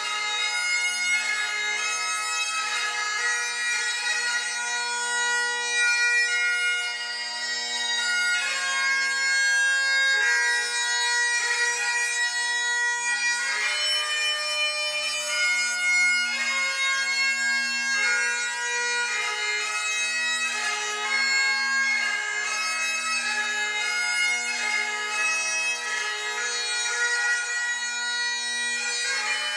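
Great Highland bagpipe playing a melody on the chanter over the steady, unbroken sound of its drones.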